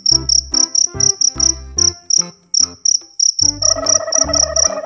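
A large black cricket chirping: short, high, rapid chirps about five a second, with a brief pause partway through. Under it, a lower steady tone sounds for about a second near the end.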